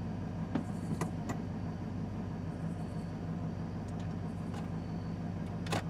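A vehicle engine idling steadily, a low even hum, with a few faint clicks over it.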